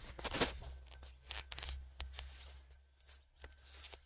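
Rustling, scraping and several sharp plastic clicks from hands twisting and tugging at a plastic brake light switch in its bracket under a Jeep Grand Cherokee's dashboard. The clicks bunch near the start and again about a second in, then thin out. A low hum runs underneath.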